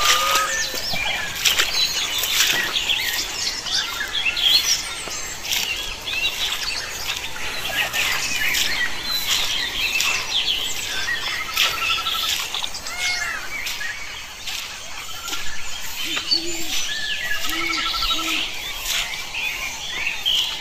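Many birds chirping and calling at once: short whistled notes rising and falling, two fast rattling trills, and a few short low notes near the end.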